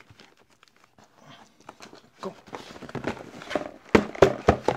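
Cardboard camera packaging being handled: faint taps and scrapes at first, then cardboard sliding and rustling, with a few sharp knocks of the box against the wooden desk near the end.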